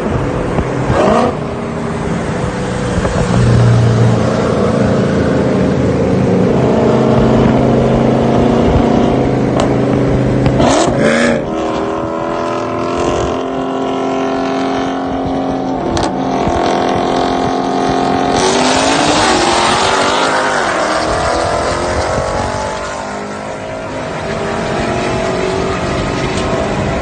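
V8 engines of a Corvette Z06 and a widebody Dodge Hellcat running hard. The engine note holds steady, then changes pitch around 11 seconds in. A rush of noise comes at about 18 seconds, followed by rising and falling revs.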